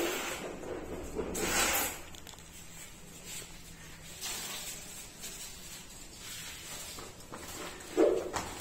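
Peeled onions scooped with a metal mug from a plastic basin and tipped into an aluminium pot of raw beef: short rustling, pattering pours, a couple of them a few seconds apart, with the mug scraping among the onions near the end.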